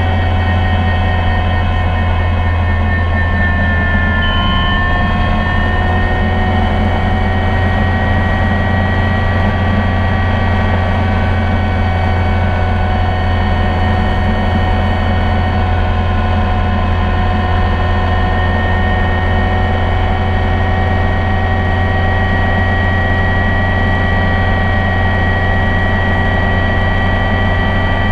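Helicopter in flight heard from inside the cockpit: a steady low rotor drone with a steady high whine running above it.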